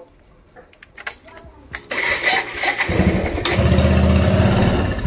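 Motorcycle being started: a few light clicks from the ignition key and switches, a short burst of cranking about two seconds in, then the engine catches near three seconds and keeps running steadily.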